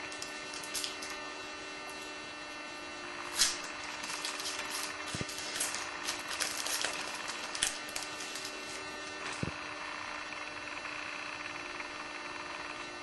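Trading cards and foil packs being handled: scattered rustling and clicks, with one sharp snap about three and a half seconds in, over a steady electrical hum.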